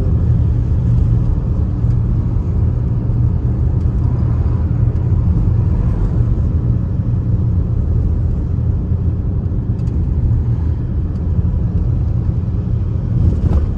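Steady low rumble of a moving car heard from inside the cabin: road and engine noise while driving.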